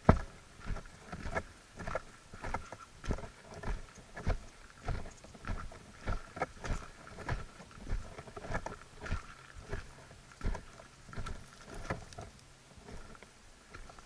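Footsteps on a dry dirt path at a steady walking pace, about one and a half steps a second, growing softer near the end.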